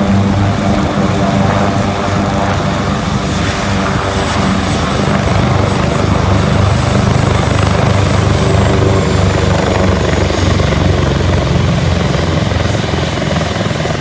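Helicopter running on the ground with its rotors turning: a steady, loud rotor beat and engine noise, with a high turbine whine that slowly drops in pitch and fades out about ten seconds in.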